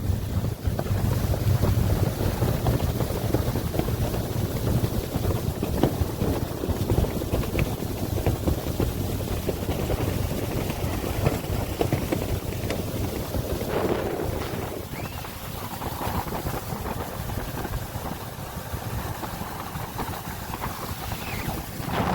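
Boat motor running over open water, with wind buffeting the microphone.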